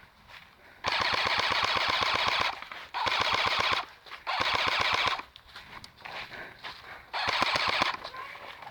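Airsoft electric M14 rifle firing on full auto in four bursts, a long one and then three shorter ones, each a fast, even string of shots with the gearbox whirring.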